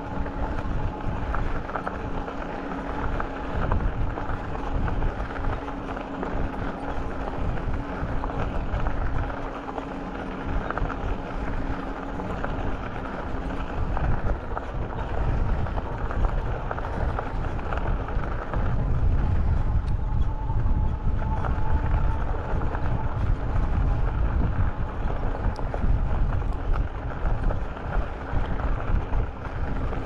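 Wind buffeting the microphone while riding a bicycle, over steady tyre and road noise. The low rumble gusts unevenly and grows heavier past the middle, and a faint steady hum runs through the first half.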